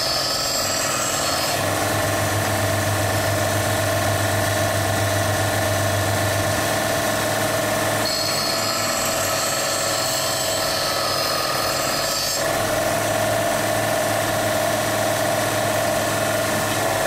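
Electric grinder running continuously as it grinds away excess from a thick steel piece, a steady motor whine under the grinding noise, the tone shifting a few times as the pressure on the metal changes.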